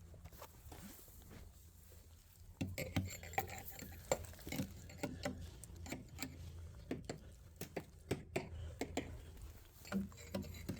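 Tapping on house siding boards to check them for damage: an irregular run of light, sharp knocks that starts about two and a half seconds in.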